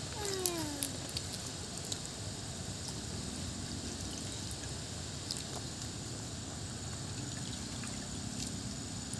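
A pot of coconut-milk fish curry simmering with a steady bubbling hiss and a few light knocks as long beans are laid in. Near the start there is a short cry that falls in pitch.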